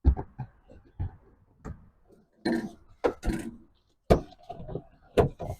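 Irregular thumps and clicks, about one a second, with a couple of short scraping rustles near the middle, from a cardboard floorboard template being handled and fitted against the car's floor.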